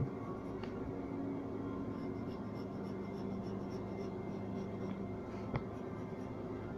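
Pencil scratching across paper as fur is sketched in strokes, over a steady low hum. A single sharp click about five and a half seconds in.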